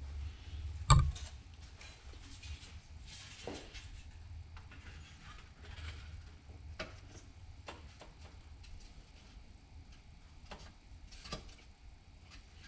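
Plastic instrument-cluster parts being handled and fitted together by hand: one sharp knock about a second in, then scattered light clicks and taps as the pieces are set down and pressed into place.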